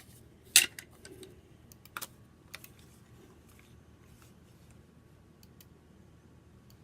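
A few scattered sharp clicks and taps, the loudest about half a second in, two more around two seconds and two and a half, then faint ticks, over quiet room tone.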